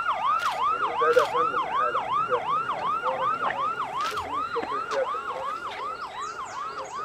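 Emergency-vehicle siren sounding a rapid yelp, its pitch swinging up and down about three times a second and easing slightly toward the end. A few sharp clicks sound over it.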